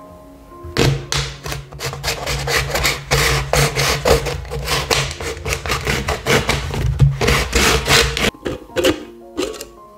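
A large kitchen knife sawing through a thin plastic water bottle: a rapid run of sawing strokes starts about a second in and goes on until near the end, with a few last strokes after a short break. Soft background music plays underneath.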